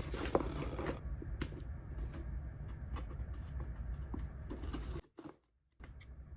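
Light, scattered clicks and taps of a cardboard package being handled, over a low steady hum. The sound cuts out briefly about five seconds in.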